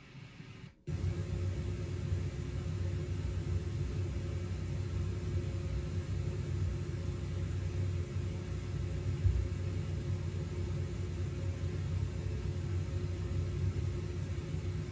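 Recorded forced-air air-conditioning noise used as a test sound: a steady low rumble with a faint hum, starting about a second in and cutting off abruptly at the end.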